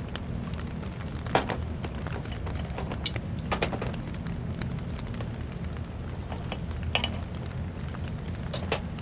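Steady low rain noise with a few sharp clinks and knocks over it: the loudest come about a second and a half in, about three seconds in and about seven seconds in.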